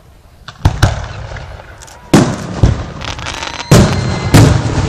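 Aerial fireworks shells bursting: about five sharp booms, roughly one a second, each trailing off in crackle and echo.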